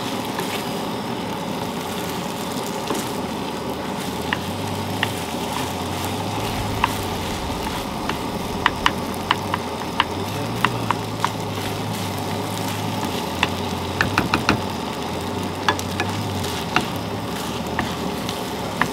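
Shrimp and fried rice sizzling steadily in a nonstick skillet on a propane camp stove, with a wooden spatula clicking and scraping against the pan as it is stirred. The clicks come more often after the first few seconds.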